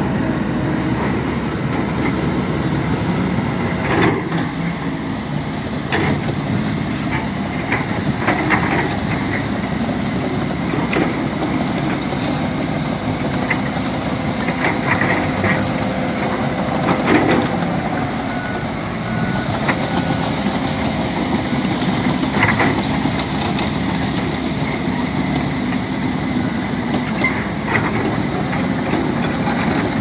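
Heavy earthmoving machinery at work: diesel engines of crawler bulldozers, excavators and dump trucks running steadily together, with scattered metal clanks and knocks throughout.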